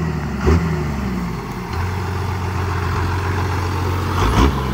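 First-generation Dodge Ram's 12-valve Cummins 5.9 L inline-six diesel idling steadily, with a brief rev that falls back about half a second in.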